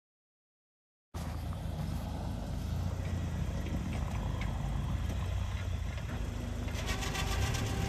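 1987 Toyota 4Runner's engine running steadily at low speed as the truck moves through snow with a plow blade mounted. It cuts in abruptly about a second in, after a moment of dead silence.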